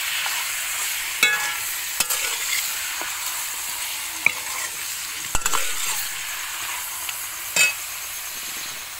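Chicken pieces frying with a steady sizzle in a metal pan while a steel spoon stirs them. The spoon scrapes the pan and knocks against it in several sharp clicks. The sizzle grows gradually quieter.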